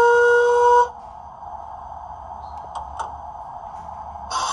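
Model steam locomotive sound decoder (Zimo MS480R with the MS055P industrial steam sound project) playing through the loco's small speaker: a steam whistle blast of about a second, then a quiet steady hiss with two light clicks, and a loud steam hiss starting near the end.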